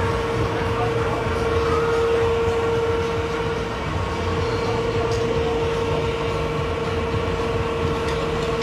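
Steady mechanical drone from machinery on the parked food trucks: a held mid-pitched hum over a low, throbbing rumble that runs on without a break.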